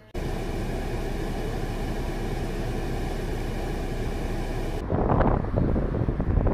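Steady rushing hiss of a car's heater blower running inside the cabin, in front of a frost-covered windscreen. About five seconds in it cuts to gusts of wind buffeting the microphone.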